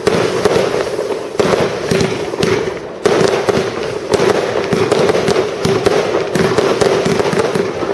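Fireworks display: a dense, rapid barrage of bursting shells and crackling effects, with a brief lull about three seconds in.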